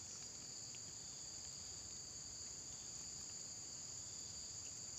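Steady, high-pitched insect chorus, a constant unbroken drone holding two pitches, with a few faint ticks.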